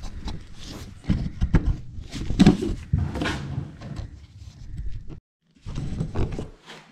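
Irregular knocks, clatter and rustling of hand tools and hands working on the pipework under a basin. The sound cuts out completely for a moment just after five seconds, then the knocking resumes.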